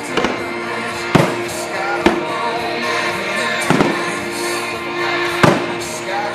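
Aerial fireworks shells bursting with sharp bangs, about four in six seconds, over loud music.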